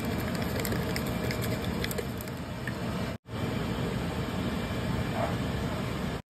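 Steady low rumbling kitchen noise over a pan of vegetable tomato sauce being stirred, with faint crackles in the first couple of seconds. The sound cuts out abruptly twice.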